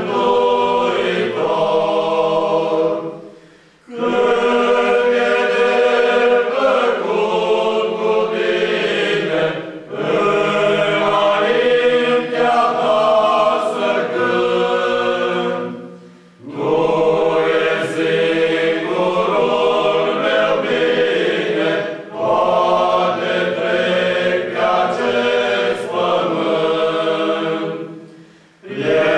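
Male choir singing a cappella in several-part harmony, in long held chords. The phrases run a few seconds each, separated by brief pauses.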